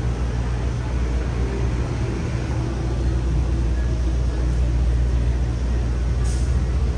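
Steady city street traffic rumble, with a brief hiss about six seconds in.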